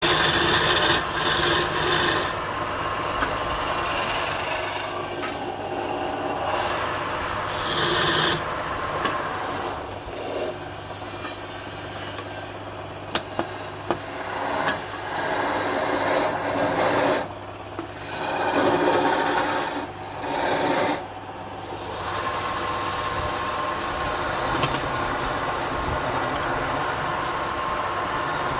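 Wood lathe running with a steady hum while a turning tool works the spinning wood, a rough scraping that swells and fades in passes, with a couple of sharp clicks about halfway through.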